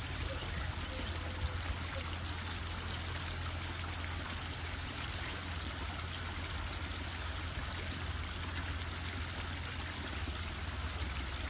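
Water running steadily into a pond, an even splashing rush with a low hum underneath.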